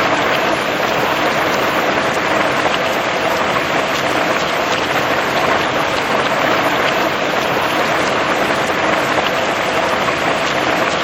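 Steady rain falling: an even, dense hiss with many small drop ticks scattered through it.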